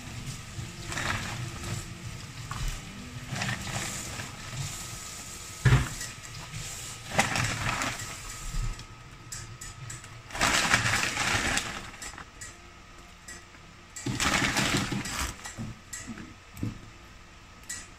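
Dried bihon rice-noodle sheets crackling and rustling as a hand presses them down into broth in a stainless steel Saladmaster skillet. There is a sharp knock about six seconds in, two louder bursts of rustling around the middle and later on, and small clinks of a utensil against the pan near the end.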